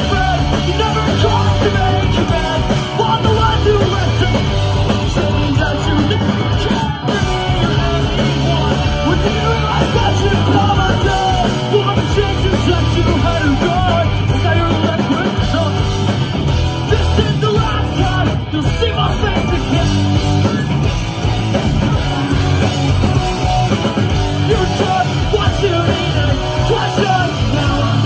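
Live punk rock band playing loud and steady: electric guitar, bass and drums under a singer singing and yelling into a microphone.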